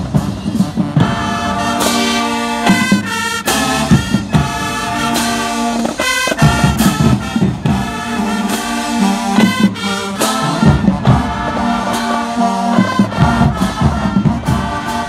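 High school marching band playing: the brass section sounds loud held chords and riffs, with drums hitting at the start and again near the end.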